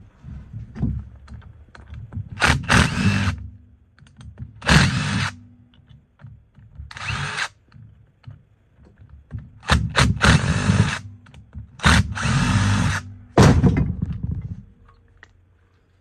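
Cordless power driver spinning out the bolts that hold the brush and terminal blocks on a large DC motor's end housing. It runs in repeated short bursts of a second or less, with quiet gaps between them.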